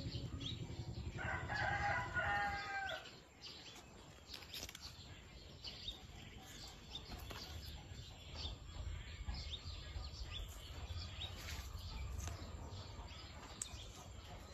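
A rooster crows once, about a second in, for roughly two seconds. Faint short chirps of small birds follow over a low outdoor background.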